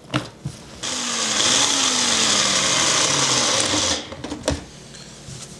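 Nutri Ninja single-serve blender pureeing a tomato, ginger and sesame-seed dressing. It starts with a whir about a second in, its motor pitch slowly dropping, and shuts off sharply about four seconds in. There are clicks of the cup being twisted onto the blade lid before it starts and a knock as the cup is lifted off afterwards.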